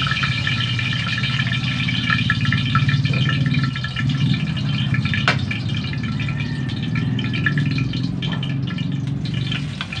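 Oil heating in a wok on a gas stove: a steady low rumble with many small scattered crackles and pops.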